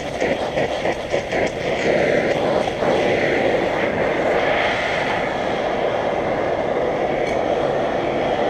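Gas torch flame running steadily, heating a steel nut for an oil quench to colour it. It crackles at first, then settles into an even, loud noise about two seconds in.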